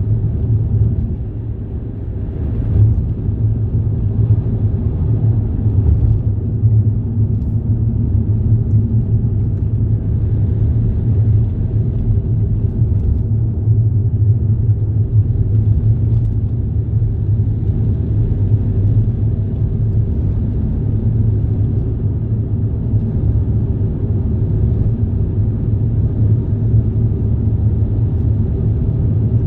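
Steady low rumble of a moving vehicle, with no separate events standing out.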